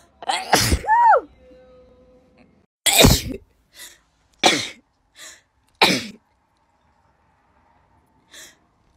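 A person sneezing, loud and abrupt, several times. One sneeze comes about a quarter second in, trailing into a short high voiced squeak. A run of three follows about a second and a half apart, each after a quick breath in.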